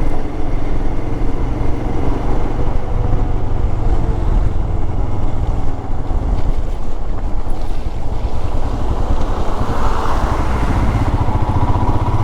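Royal Enfield Himalayan's single-cylinder engine running steadily while the motorcycle is ridden along, with a denser rush of noise a little past the middle.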